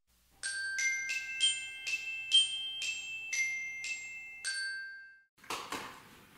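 Intro jingle of bright tuned bell notes, glockenspiel-like: about a dozen notes struck in quick succession, each ringing on, dying away about five seconds in. A noisy swell with a few soft hits follows near the end.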